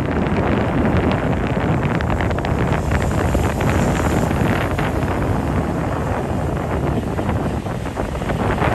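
Wind buffeting the microphone of a moving vehicle, a steady rushing over the low rumble of the road and engine.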